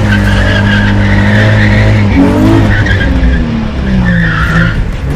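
Nissan 350Z drift car sliding, its engine held at high revs with the tyres squealing and skidding. The revs hold steady, then dip and climb again a few times in the second half.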